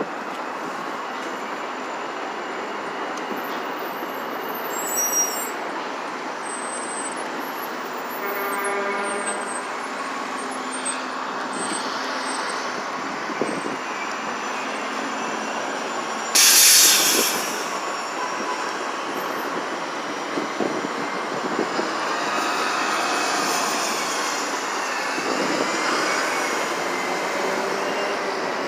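City street traffic noise with an elevated subway train and hybrid-electric city buses passing. About halfway through comes a loud, short hiss of air brakes, and near the end a passing bus's drive whines, rising and falling in pitch.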